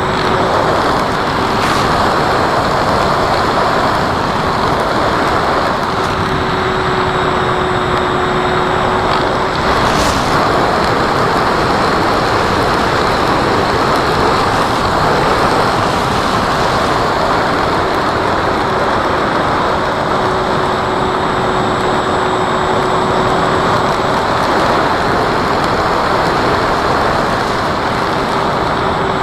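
Steady rushing wind noise, with the faint hum of an electric RC model airplane's motor and propeller fading in and out.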